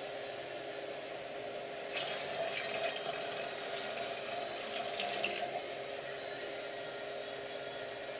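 Beer running from a siphon tube into a plastic bottling bucket, a steady trickle with louder splashing between about two and five and a half seconds in.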